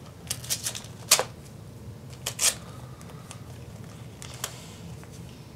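Christmas wrapping paper being torn off a small present in short, sharp rips: a quick run of them in the first second, the loudest about a second in, two more at about two and a half seconds, and a faint one later.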